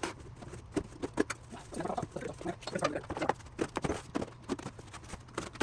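A cardboard shipping box being opened by hand: irregular rustling, scraping and crackling of cardboard and packing, with many short sharp clicks.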